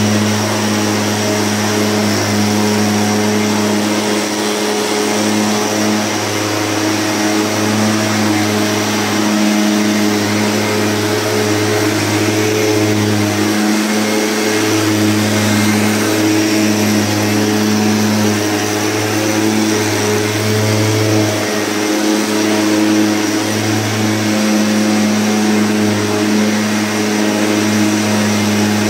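Backpack motorized mist blower running steadily while spraying disinfectant mist: a constant engine drone with air rushing out of the spray tube.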